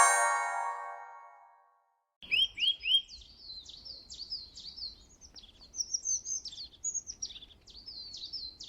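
A ringing musical tone fades out, and after a brief silence small birds chirp and twitter in quick repeated calls, beginning with three lower chirps.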